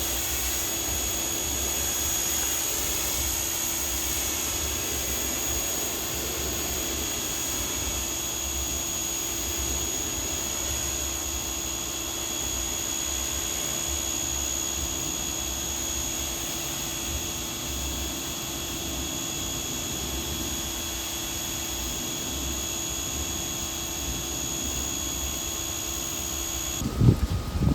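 Active 2.0 1800 psi electric pressure washer running under load with water spraying from the gun, a steady rushing noise with a steady whine over it. It shuts off suddenly near the end.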